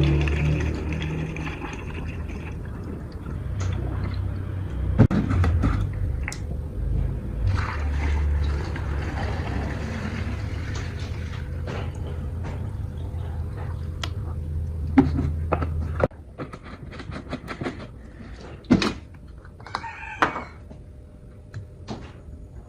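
Small two-stroke minibike engine running steadily with a low hum, which stops suddenly about sixteen seconds in. Scattered clicks and knocks follow.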